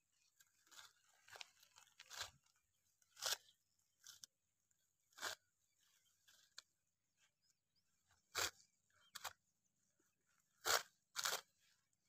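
Hand sickle cutting through bunches of green berseem fodder stalks: a series of short, crisp crunches at irregular intervals, with two close together near the end.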